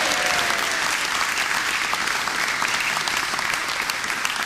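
Audience applauding steadily, a dense patter of many hand claps.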